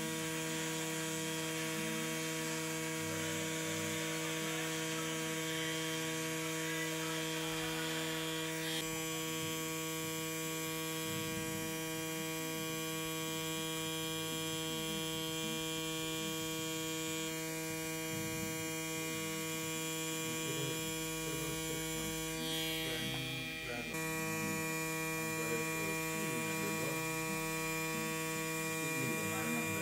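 Xion pen rotary tattoo machine buzzing steadily as it lines a tattoo, a constant electric hum whose tone shifts abruptly a couple of times.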